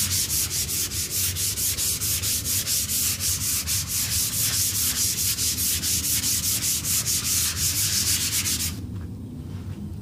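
320-grit sandpaper rubbed by hand in quick back-and-forth strokes over a polyurethane-coated wooden tabletop, about four or five strokes a second, stopping near the end. It is a light scuff sanding that knocks down the rough, bumpy misted coat between coats of finish.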